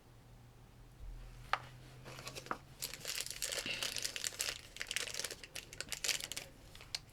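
A small toy package's wrapper being handled and torn open: a couple of sharp clicks about a second and a half in, then steady crinkling and crackling from about three seconds on.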